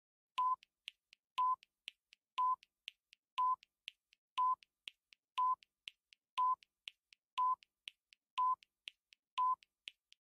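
Quiz countdown timer sound effect: a short electronic beep once a second, ten in all, with two faint ticks between each pair of beeps.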